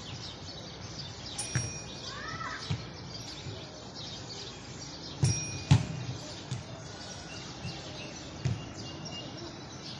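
Outdoor ambience: small birds chirping repeatedly over a steady background hiss. A few sharp clicks cut through it, the loudest two about half a second apart roughly five seconds in.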